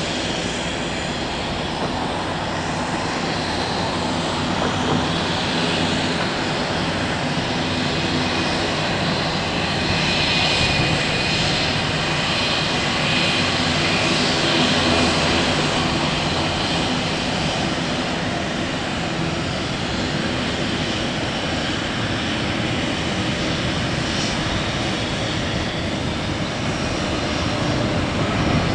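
Airliner engines running steadily, a continuous whine and rumble that swells slightly partway through.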